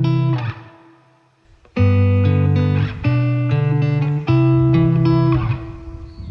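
Background music led by guitar chords. It fades out briefly about a second in and comes back with the next chord just before two seconds.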